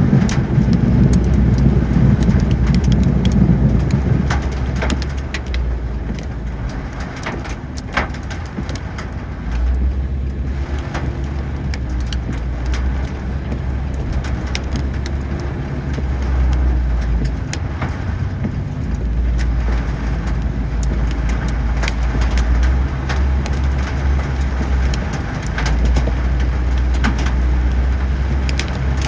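Car on a wet road in the rain: a steady low rumble that swells and eases every few seconds, with scattered light ticks over it.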